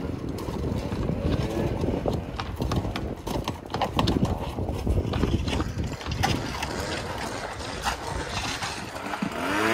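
A long-handled roofing tear-off tool scraping and knocking against a bare plywood roof deck as tile debris and old nails are cleared off. The knocks come irregularly throughout, over a low rumbling background.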